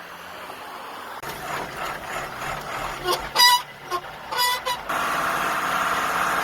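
A truck: two short, loud beeps about a second apart, then its engine running steadily from about five seconds in.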